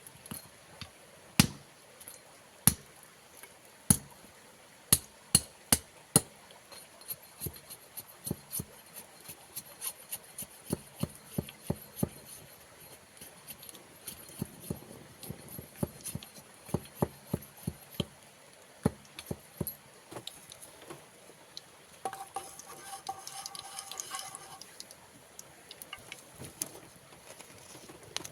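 Kitchen utensils and dishes being handled during cooking preparation: irregular sharp clinks and knocks, at times several a second. About 22 seconds in, a brief ringing tone lasts for a couple of seconds.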